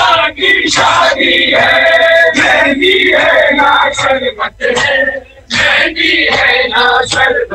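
A large group of men chanting a Shia mourning lament (noha) together in long loud phrases, with chest-beating (matam) in time.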